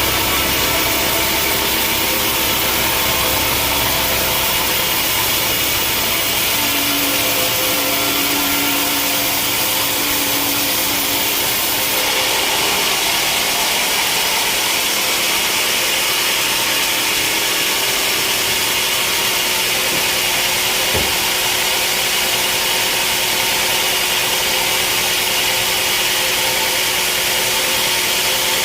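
Sawmill saw cutting through a large log: a steady, loud hissing cut over the machine's running hum, whose character shifts about twelve seconds in.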